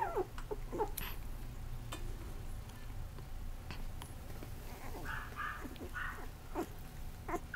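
A 22-day-old puppy whimpering in short, faint squeaky cries that bend up and down in pitch, with a few slightly higher cries about five seconds in.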